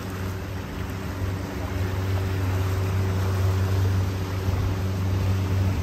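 Pontoon boat under way: a steady low engine hum with a constant rush of wind and water.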